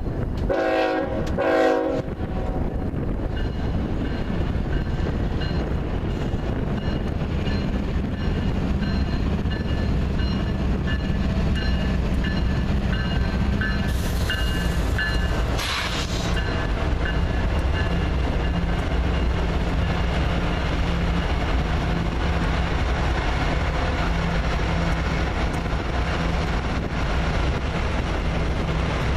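Union Pacific GE diesel-electric locomotives passing close by. A horn blast of a little over a second comes about half a second in, followed by the steady drone of the locomotive engines and the clatter of wheels on the rails as the train rolls past.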